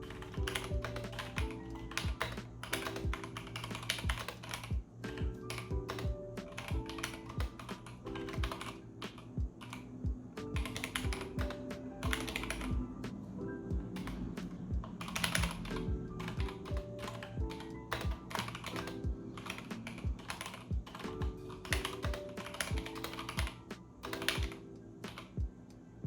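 Typing on a Keychron K8 mechanical keyboard with Gateron Brown switches: a steady, irregular run of keystroke clacks. Chill hip-hop background music plays underneath.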